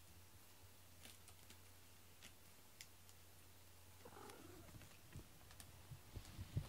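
Domestic cat purring, a quiet low steady rumble, while being stroked. About four seconds in the purring stops, followed by a brief soft call and light thumps as the cat gets up and moves.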